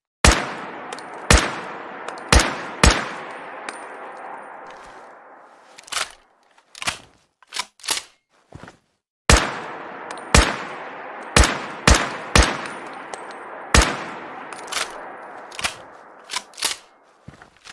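Rifle sound effect: a run of shots about a second apart, each with a long echoing tail, then a stretch of short mechanical clicks, then a second run of shots.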